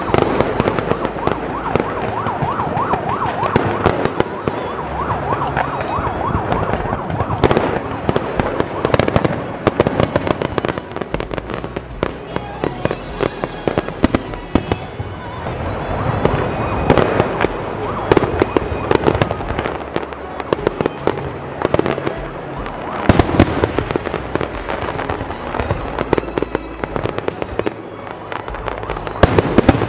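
Fireworks display: a continuous barrage of aerial shell bursts and crackling, with clusters of louder bangs coming close together at several points.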